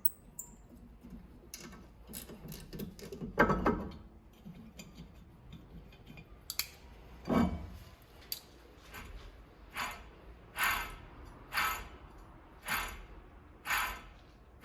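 Workshop handling noises: short metallic scrapes and clinks, a few scattered at first, then a steady run of similar strokes about once a second.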